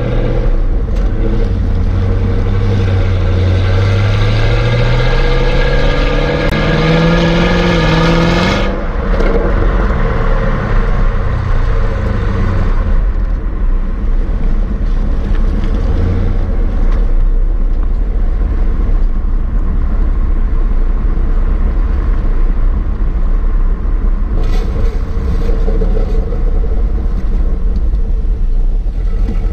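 Stock exhaust of a 2017 Camaro 1SS's 6.2-litre V8, heard at the tailpipe while driving: the engine note rises steadily under acceleration for about eight seconds, then cuts back abruptly to a steady rumble at cruising speed, mixed with road noise.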